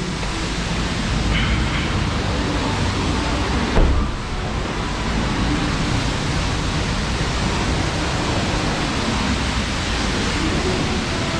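Steady rushing hiss of a self-serve car wash bay, with a single thump about four seconds in.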